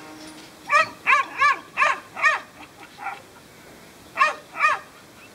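Kelpie sheepdog barking while working sheep: a quick run of five sharp, high barks about a third of a second apart, then two more near the end.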